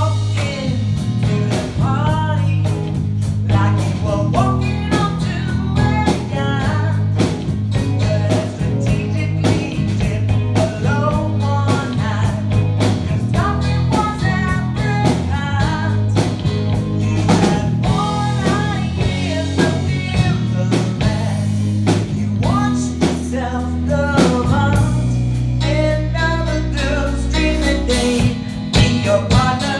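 Live band playing a yacht rock song: a woman singing into a microphone over electric bass guitar and a Pearl drum kit, with the bass holding long low notes near the end.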